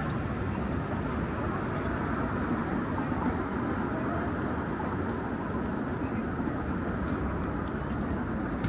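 Downtown street ambience: a steady, even wash of city traffic noise.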